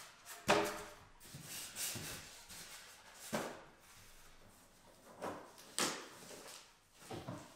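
Unboxing handling noises: white foam packing being pulled from a cardboard box and the plastic wrapping over the receiver being handled, giving a series of short scraping and rustling sounds, the loudest about half a second in.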